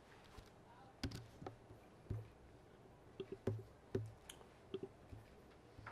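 Irregular faint clicks and soft knocks, about a dozen spread unevenly, from things being handled.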